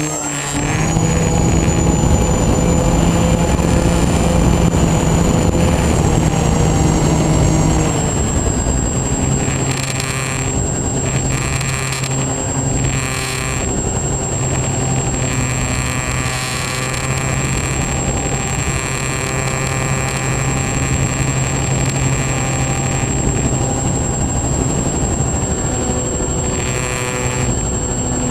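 Twin electric motors and propellers of a Multiplex Twin Star RC plane running steadily, heard from the onboard camera with rushing air noise. Their pitch drops slightly about eight seconds in and then holds steady, with a thin high whine above it throughout.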